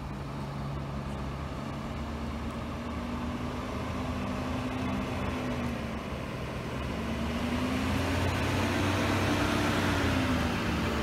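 Medium-duty truck engine running as the bloodmobile drives across the lot, growing gradually louder as it comes closer, its pitch rising and then falling again in the second half as it pulls around.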